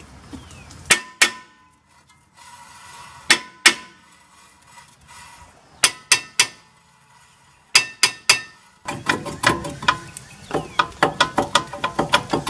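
Hammer blows ringing on the old rear brake rotor of a Volvo S60, in groups of two and three, then a quick run of lighter taps from about nine seconds in. The rotor is stuck because the parking brake shoes have worn a lip on its inside ring, so it must be knocked free.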